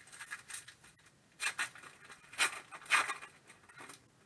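Plastic trading-card pack wrapper crinkling and tearing as it is opened by hand. It comes in a few short rustling bursts, loudest about one and a half, two and a half and three seconds in.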